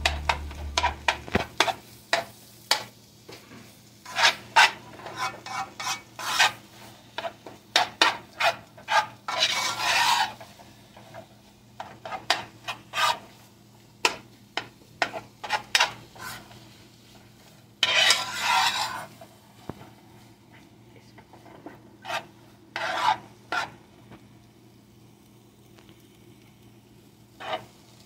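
A metal spatula scraping and stirring vegetables and egg in a nonstick frying pan: quick irregular scrapes, with longer scrapes about ten seconds in and again near eighteen seconds, fewer toward the end.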